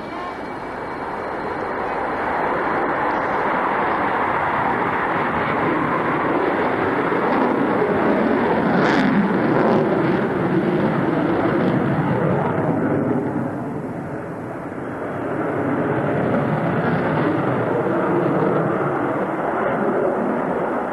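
Sukhoi Su-27 fighter's twin jet engines, a loud rushing roar from an aircraft in display flight. The roar swells, dips briefly about two-thirds of the way through, then builds again.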